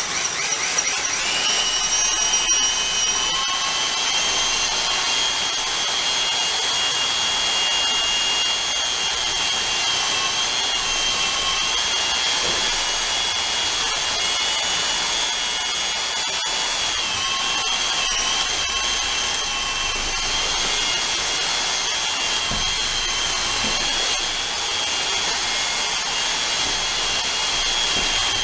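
Keyang D-23 handheld electric mortar mixer running steadily with a high motor whine, its paddle stirring premixed mortar.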